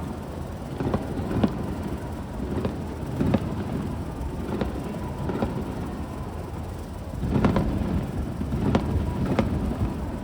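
Fireworks shells bursting, a string of sharp cracks and pops at irregular intervals over a steady low rumble, with the bursts coming thicker and louder from about seven seconds in.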